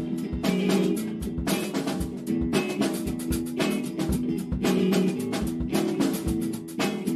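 Improvised instrumental band jam: a drum kit keeps a steady beat, with a strong hit about once a second and lighter ones between, under a repeating low riff from keyboard and guitar.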